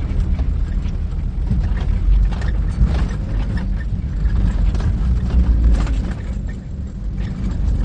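Car driving through floodwater over the road, heard from inside the cabin: a loud, steady low rumble with water splashing against the car.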